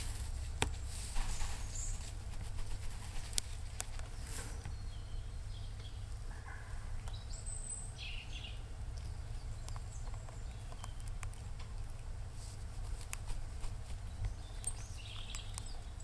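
A Eurasian red squirrel scratching and rustling in dry leaf litter, with short high bird chirps about halfway through and again near the end, over a low steady rumble.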